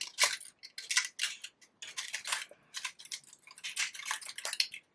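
Paper flowers being handled and pushed into a bouquet: irregular short crinkles and rustles of stiff paper, many small ones in quick succession.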